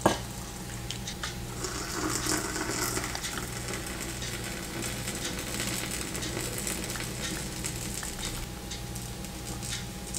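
Hot milk poured in a thin stream into a mug of whipped coffee, a soft steady hiss of liquid splashing and frothing into the foam. A short sharp knock at the very start.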